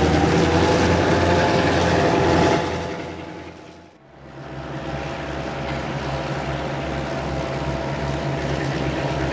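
A loud rushing sound with some steady tones fades out over the first few seconds. After a cut, a Renfe class 319.2 diesel locomotive is heard running steadily with a low engine drone as it pushes through deep snow on the track.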